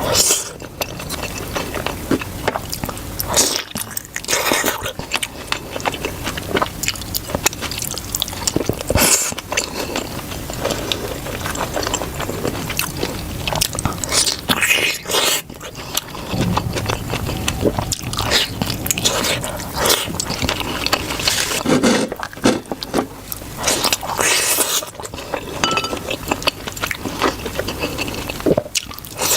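Close-miked eating of dumplings: repeated biting and wet chewing, with many short crackly mouth sounds.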